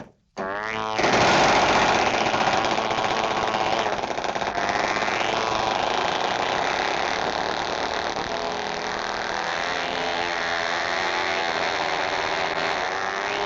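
Cartoon sound effect: a short click, then a dense, continuous mechanical clatter with a pitched whine in it, starting about a second in and going on steadily.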